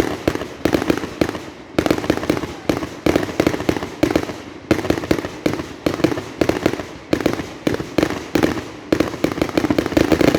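Fireworks going off in a dense, rapid barrage of sharp bangs, several a second without a break, stopping abruptly at the very end.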